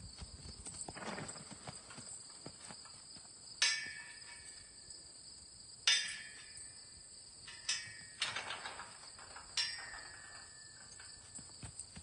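Steel pipe corral panels clanking five times as the colt knocks against them, each clank ringing on briefly like struck metal, over a steady high chirring of crickets.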